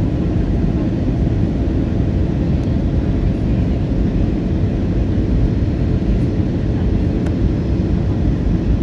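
Steady cabin noise of an Airbus A320 on approach, heard inside the cabin by the wing: a constant low rumble of the jet engines and airflow.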